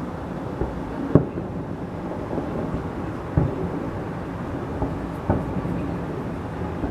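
Fireworks salute: a steady low rumble with several sharp booms of shells bursting, the loudest about a second in.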